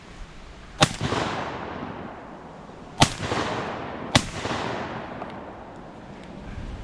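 Three shotgun shots at ducks: one about a second in, then two more about three and four seconds in. Each shot echoes away for about a second.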